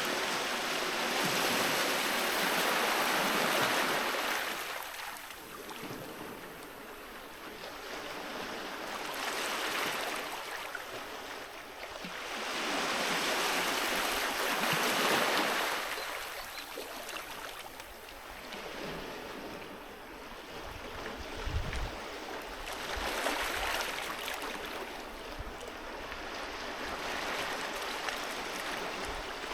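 Sea waves breaking and washing up the shore, the surf swelling and fading in several long surges. A short low thump comes about two-thirds of the way through.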